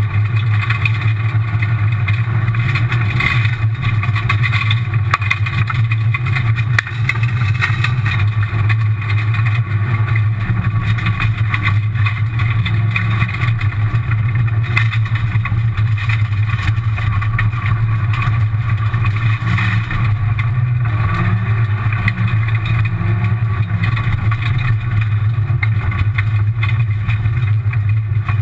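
Rally car's engine running hard at speed, heard from inside the stripped cabin as a loud, steady drone with gravel and road noise from the tyres.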